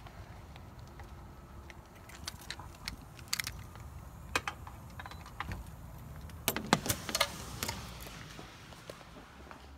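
Keys jangling and sharp metallic clicks from a door lock and handle as a glass-paned door is unlocked and opened. The clicks are scattered at first and loudest in a quick cluster about seven seconds in.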